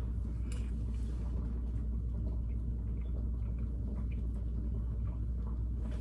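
Steady low background rumble, with a few faint small clicks of chewing as a spoonful of cooked orzo is tasted for texture.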